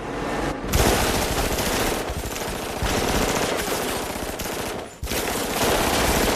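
Sustained automatic gunfire, a dense rapid run of shots with a brief break about five seconds in.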